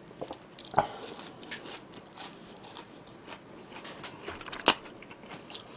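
Quiet eating sounds: light clicks of chopsticks against food containers and soft mouth noises, with a few sharper clicks, the loudest about four and a half seconds in.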